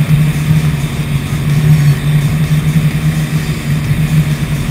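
Cougar powerboat's engines running flat out, a steady loud drone, with the rush of wind and water over the open cockpit.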